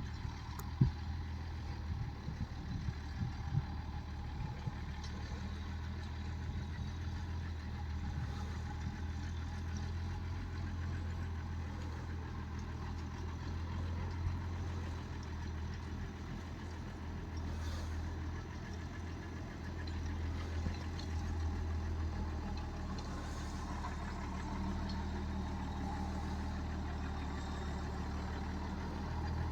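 Tractor engine running steadily at an even speed, with a few sharp knocks in the first few seconds.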